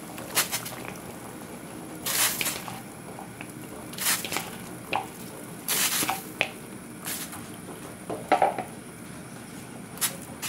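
Raw chicken feet splashing as they are dropped by the handful into a stainless steel pot of hot water, several separate splashes. Near the end a metal ladle stirs them, with a brief clink against the pot.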